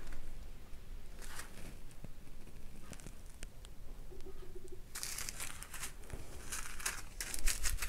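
Small plastic ziploc bags of rhinestone drills crinkling as they are handled: soft rustles at first, then a busier stretch of crinkling and rustling from about five seconds in as the bags are moved.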